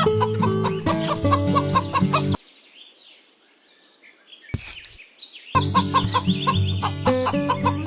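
Background music mixed with chicken clucking. The music cuts out about two and a half seconds in, leaving faint bird calls and a single click, and comes back about three seconds later.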